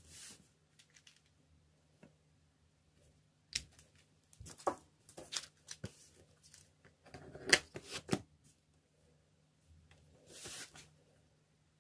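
Handling sounds from nail stamping on a steel stamping plate: scattered clicks and short scrapes of the polish scraper and clear stamper against the plate. The loudest part is a quick run of clicks about seven to eight seconds in, and there is a short rustling hiss near the end.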